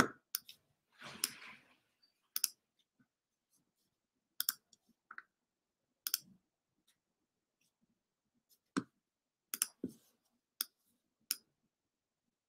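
Scattered single clicks from working a computer, about a dozen spaced unevenly, with a short soft rustle about a second in.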